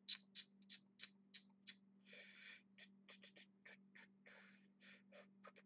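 Faint clicking at a computer desk, about three even clicks a second for the first two seconds, then scattered clicks. Two short breaths come about two and four seconds in, over a steady low hum.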